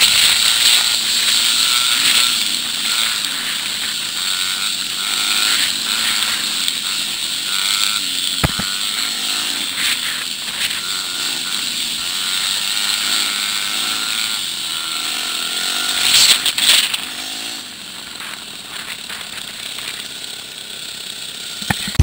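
Dirt bike engines running along a trail, the pitch rising and falling as the throttle opens and closes, under a steady hiss. A single sharp knock comes about eight and a half seconds in, and a brief louder rush of noise around sixteen seconds.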